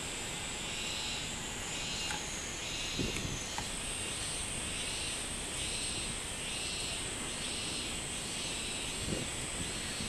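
Robust cicada (minmin-zemi) calling in a steady, repeated "miin-miin-miin" pulse, about one and a half swells a second, over a continuous high-pitched buzz. A couple of soft low bumps come about three seconds in and near the end.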